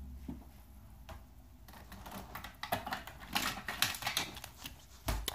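Handling noise on a phone: irregular light taps, clicks and rubbing as fingers and a soft object brush against the phone, starting about halfway through.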